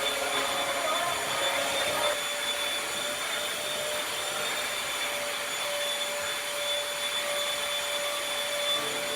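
Vacuum cleaner running steadily with a constant motor whine.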